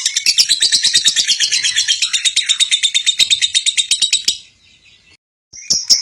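Lovebird giving its long 'ngekek' chatter: a rapid, evenly pulsed run of high-pitched notes. It breaks off about four seconds in and starts again near the end.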